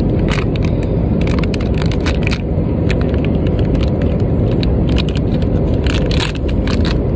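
Plastic candy wrapper crinkling and crackling in short irregular bursts as it is opened and handled, over the steady engine noise of an airliner cabin.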